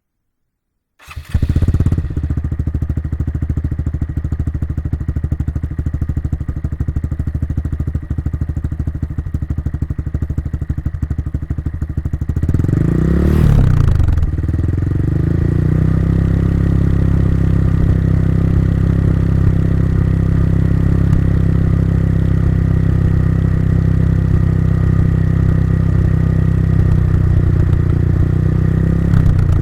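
Honda Monkey 125 single-cylinder engine starting about a second in and idling steadily through its exhaust. It is blipped once about halfway through, then settles back to a steady, slightly louder idle, and starts to rev again at the very end.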